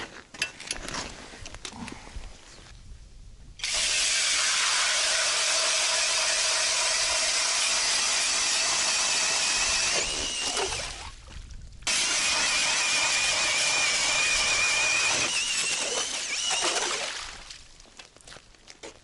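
Cordless drill driving an ice auger through river ice: a steady motor whine over the grinding crunch of the auger cutting, in two long runs of about six and five seconds with a short break between. Lighter crunches and clicks come before the first run.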